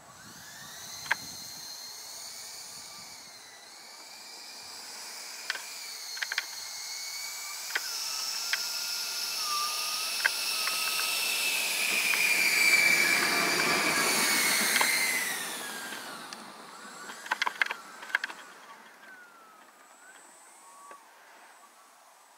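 Electric ducted fan of a Viperjet RC model jet whining as the model taxis. The whine swells to its loudest about 13 seconds in, then drops in pitch and dies away, with sharp clicks now and then.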